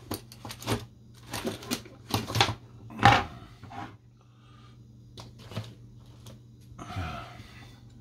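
Tools and a circuit board being handled on a wooden workbench: a string of irregular clicks, knocks and clatter, the loudest knock about three seconds in.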